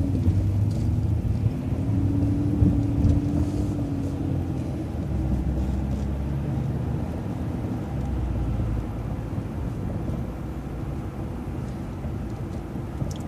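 Interior engine and road noise of a vehicle driving along a city street: a steady low rumble with an engine note that swells about two to four seconds in and then fades.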